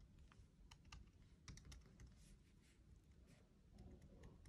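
Faint, scattered light clicks and soft scratchy taps of a snow marker's tip dabbing small snowflakes onto a card.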